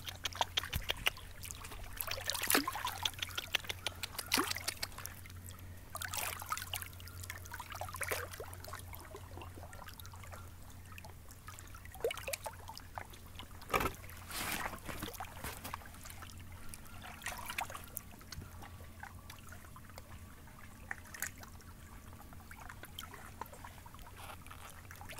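Water lapping and trickling at the edge of a bay, with irregular small splashes.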